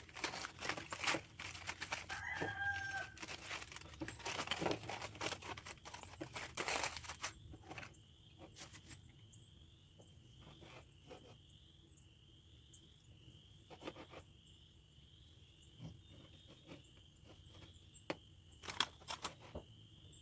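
Aluminium foil crinkling as a wrapped smoked brisket is opened, then a chef's knife slicing through the meat and tapping on a plastic cutting board. A steady high-pitched trill runs under the cutting.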